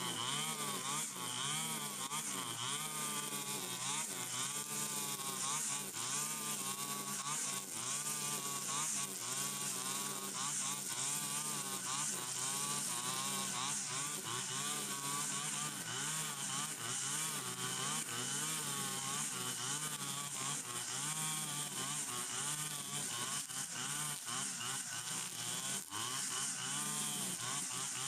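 Stihl FS 120 brush cutter's two-stroke engine running under load while cutting grass, its pitch wavering up and down continuously as the head swings through the growth.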